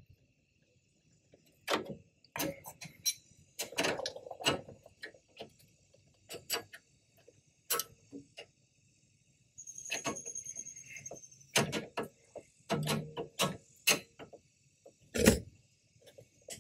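Hand tools clicking and knocking against metal brake-line fittings and brackets in irregular, separate strikes, with a short high squeak about ten seconds in.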